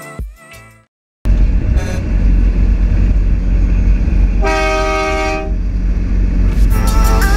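Peterbilt 389 semi-truck rumbling at highway speed, heard from a hood-mounted camera with a heavy low drone. A single air horn blast of about a second sounds in the middle. Music fades out at the start and comes back near the end.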